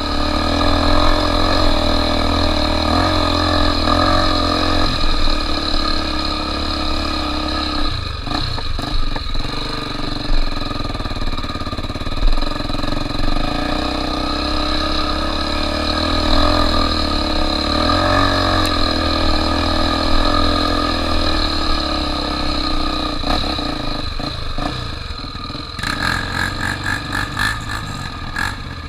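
Trail motorcycle engine running continuously, the revs rising and falling as it is ridden, with a fast pulsing rattle in the last few seconds.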